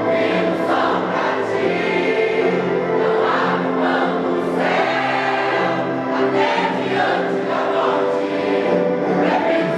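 A gospel vocal group singing a medley together, with continuous sung notes.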